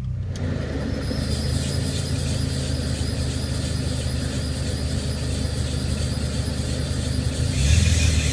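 2006 Toyota Vios running, with a steady low hum under a hissing, faintly whining noise that comes in just after the start and grows louder near the end. This is the car's unexplained weird noise.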